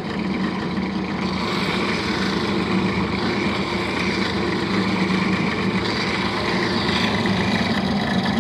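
Benchtop pillar drill motor running steadily, spinning a small metal pin in its chuck, while a flat hand file rasps against the turning metal to shape it as on a lathe.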